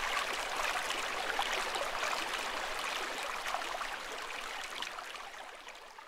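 Mountain stream flowing over rocks: a steady splashing water sound that fades out near the end.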